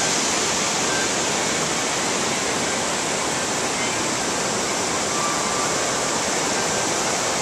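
Waterfall rushing: a loud, steady roar of falling water with no let-up.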